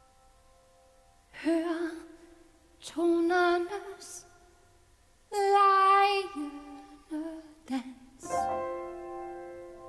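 A woman sings a slow Danish song in separate phrases, accompanied by an upright piano. The piano's held notes fade out before her first phrase about a second in, and a new piano chord comes in near the end.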